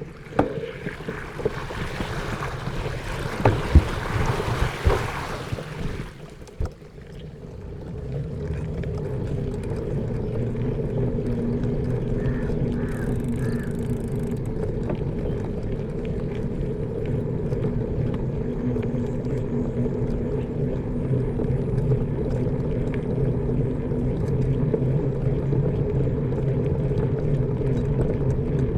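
A few seconds of hissing noise with several sharp knocks. Then a motor starts running steadily with a low hum and keeps going, growing slightly louder.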